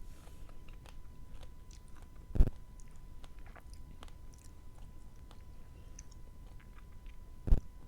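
Close-miked chewing with many small wet mouth clicks. Two sharp, loud knocks stand out, about two and a half seconds in and again near the end.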